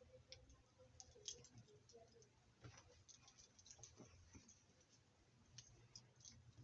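Near silence: room tone with faint, scattered small clicks and rustles.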